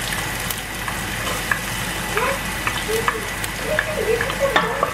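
Diced onion, zucchini and carrots sizzling as they are scraped off a plate with a wooden spatula into hot avocado oil in a stainless steel pot, with a steady hiss and a few light scraping clicks.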